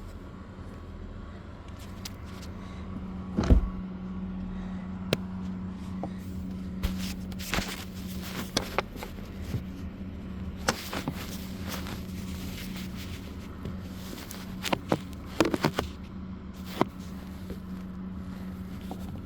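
Scattered clicks and knocks of hands and tools working the seat belt post's mounting bolts inside a Ford F-150 cab, over a steady low hum.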